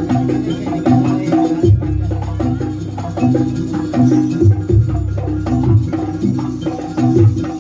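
Live Javanese jaranan gamelan music: drums and tuned metal percussion playing a busy, repeating rhythm.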